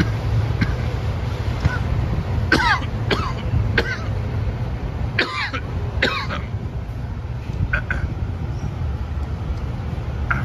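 Steady car rumble. Over it come about six short, high-pitched cries that bend sharply in pitch, mostly falling, between about two and eight seconds in.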